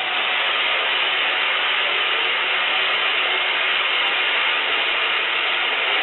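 Vertical band saw cutting through a large timber cant as the wood feeds past the blade: a steady, even rushing noise that holds at one level.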